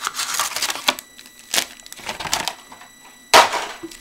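Sealed trading-card packs being handled: a string of rustles and light clicks, with one sharp, loud knock about three and a half seconds in. A faint high-pitched whine from a PC fan runs underneath.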